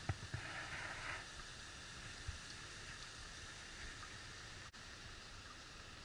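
Faint, steady rush of water flowing beneath the snow, a stream or small fall hidden under the snowpack, heard as an even hiss.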